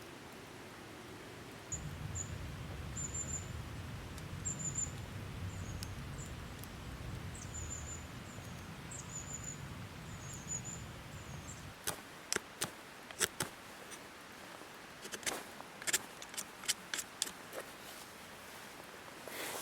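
A small bird chirping, short high calls repeated every second or so over a low rumble. From about halfway on, a series of sharp snaps and cracks.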